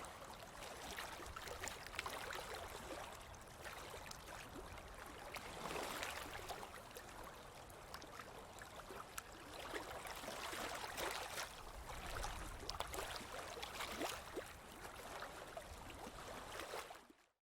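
Sea waves washing ashore: a steady hiss of surf that swells several times as waves break, with fizzing crackle from the foam. The sound fades out suddenly near the end.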